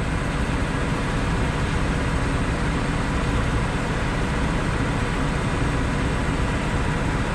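Heavy wrecker tow truck's diesel engine running steadily close by, a constant even noise with no changes in speed.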